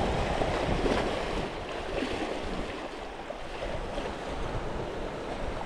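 Sea surf washing and swirling into a narrow rocky gully, with wind buffeting the microphone; the wind rumble is strongest in about the first second and a half, then eases.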